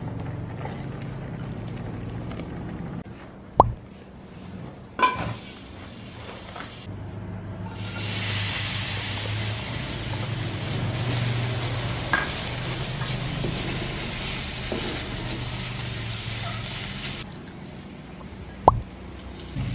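Diced sausage sizzling in hot oil in a wok and being stirred with a spatula, the sizzle strong for about nine seconds in the middle. A few sharp knocks of utensils against the pan are heard, and in the first seconds pasta water bubbles as spaghetti is lifted with chopsticks.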